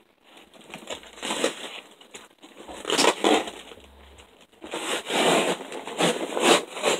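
Packing peanuts, cardboard and plastic rustling and crinkling as hands dig through a shipping box, in several short bursts.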